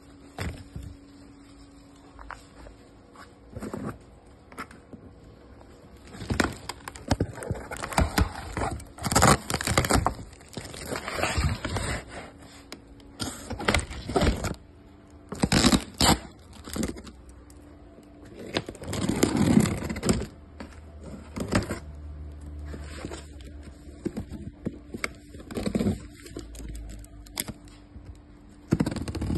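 Cardboard boxes and packaging being handled: irregular rustling, scraping and knocks, over a faint steady hum. Near the end, scissors slit the packing tape on a box.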